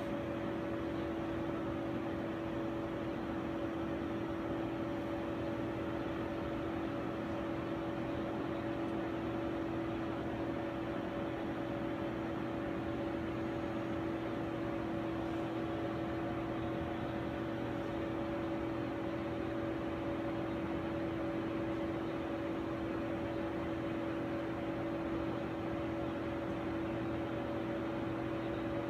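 Steady mechanical hum of laboratory equipment: two constant low tones over an even, fan-like hiss.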